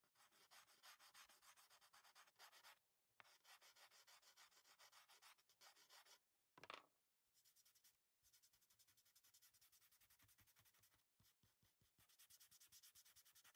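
Faint scratchy rubbing of a pastel stick dragged back and forth across paper in many quick short strokes, with a few short pauses between runs. One brief louder rub about seven seconds in.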